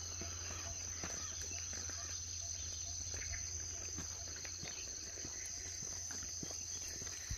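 A steady, high-pitched chorus of insects, with a low hum underneath and a few faint ticks.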